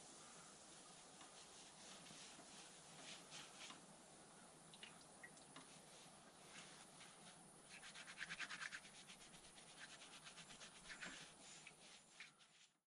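Faint scrubbing strokes of a brush rubbing on wood, with a quick run of strokes about eight seconds in. The sound cuts off abruptly just before the end.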